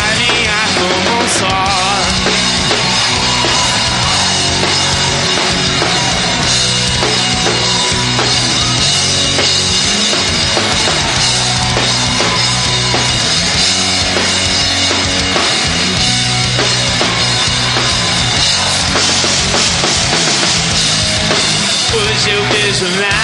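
Heavy rock band playing live: drum kit, electric guitar and bass in a mostly instrumental stretch.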